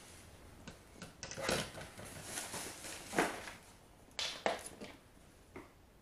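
Hands rummaging in a cardboard box and setting plastic stick-vacuum parts down on a wooden floor: a few short rustles and light knocks, the loudest about three seconds in.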